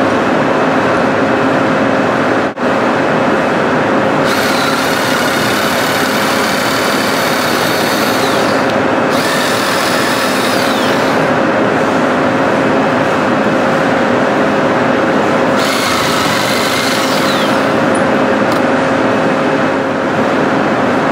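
Jigsaw cutting the legs off a composite paver clamped in a vise, over a loud steady machine hum. The cutting comes in spells, a few seconds in for about five seconds, briefly again, and once more near the end, each adding a higher whine that rises and falls.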